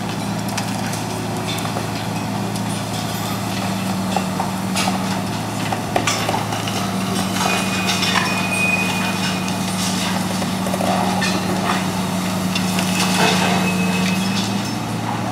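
Hitachi demolition excavator's diesel engine running steadily, with scattered cracks and clatters of concrete breaking and debris falling as its demolition jaw works on the building.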